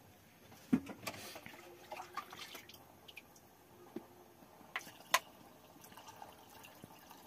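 Water being poured and dripping into a cooking pot, with a few sharp metal clinks, about one second in and again around five seconds in.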